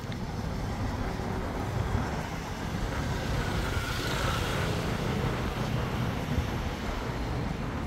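City street traffic: a steady low rumble of vehicles, with one vehicle passing close and swelling loudest about four seconds in.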